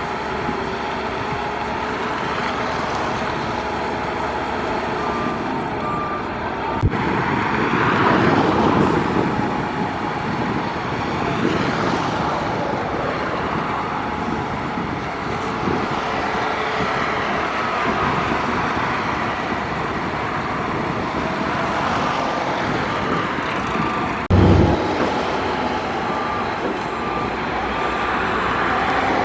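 Diesel engines of heavy earthmoving equipment (a bulldozer and dump trucks) running steadily, swelling louder about eight seconds in. A reversing alarm beeps in short runs, and a brief loud low thump sounds near the end.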